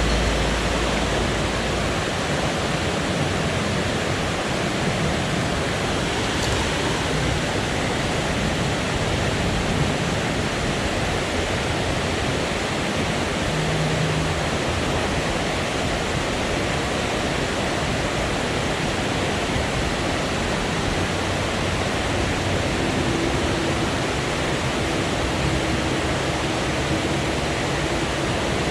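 Steady rush of river water pouring over falls or rapids, an even hiss.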